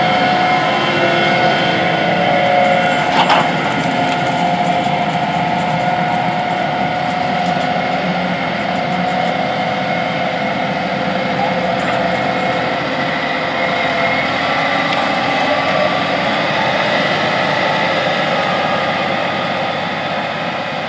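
John Deere 8RX four-track tractor driving past while pulling a planter: steady engine and track noise with a steady hum. There is a single sharp click about three seconds in.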